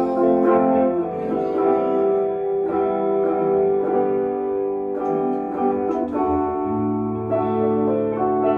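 Two electric guitars playing together: long ringing chords and notes, with a change about a second in and another near six seconds, when a low note enters underneath.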